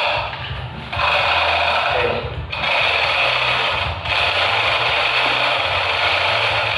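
A power tool running in long stretches with brief breaks, a harsh, steady noise over a low hum.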